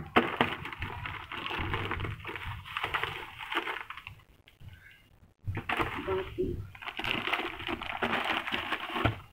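Plastic courier mailer and bubble wrap crinkling and rustling as a parcel is opened and the bubble-wrapped contents pulled out. It comes in two bouts, with a short pause about four seconds in.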